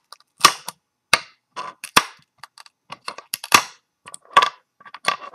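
3D-printed PLA bar clamps clicking and snapping as they are pried off a blue-taped print bed and knocked together in the hand: a quick, irregular string of sharp clicks.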